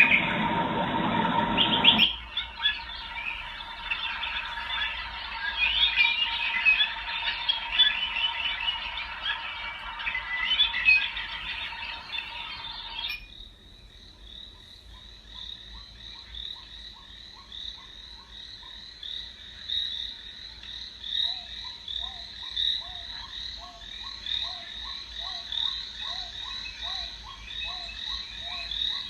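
Recorded nature sound effects played through a night-light projector's small speaker: a dense chorus of chirping up to about thirteen seconds in, then an abrupt switch to frogs croaking in a steady repeating pattern with high chirps over them.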